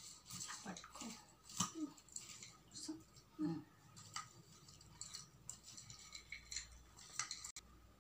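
Plastic spoon stirring a popcorn snack mix in a bowl: faint, irregular scrapes and clicks of the spoon against the bowl and the popcorn.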